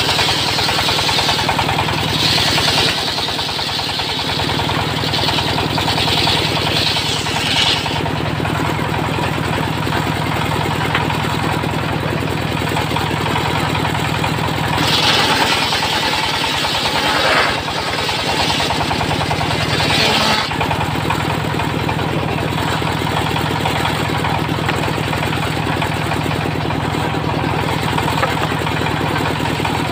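Belt-driven circular saw bench powered by a stationary single-cylinder diesel engine running steadily. The blade cuts through wood twice, a loud high-pitched whine lasting about eight seconds from the start and again for about five seconds from fifteen seconds in, with the engine running on between cuts.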